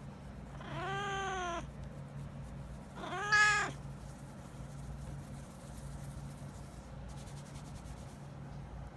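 Domestic cat vocalising as it yawns: two meow-like calls, each rising then falling in pitch, the first nearly a second long and the second shorter and louder.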